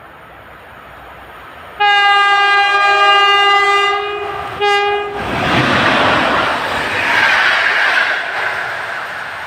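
Horn of an EP05 electric locomotive: one long blast, then a short one, as it approaches hauling an express passenger train. The train then passes at speed, a loud rushing and rattling of wheels on rail that slowly fades near the end.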